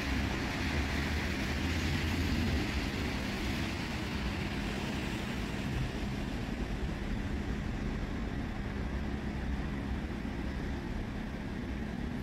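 Steady city street traffic: cars driving on a wet road, a continuous rumble and tyre noise with a faint low engine hum.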